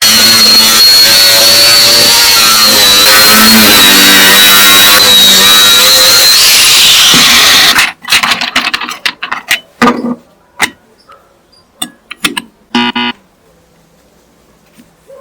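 Angle grinder running loudly with a steady high whine for about eight seconds, then cutting off suddenly. It is followed by a series of sharp clicks and knocks, with a short cluster of them near the end.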